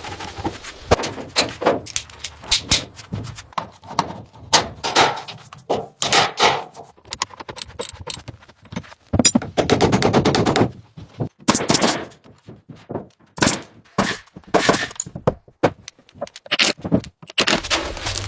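Irregular series of sharp knocks, clicks and scrapes, with longer scraping runs about ten and twelve seconds in.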